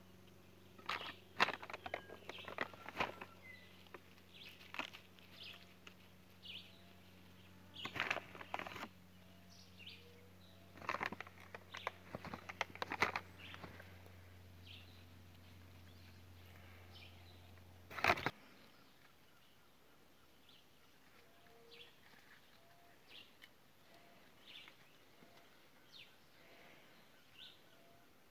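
Rustling and scraping from hands and a thin metal stake working soil among young corn and bean plants while fertilizer is applied, in irregular bursts through the first half, ending with a sharp click. After that, scattered short bird chirps.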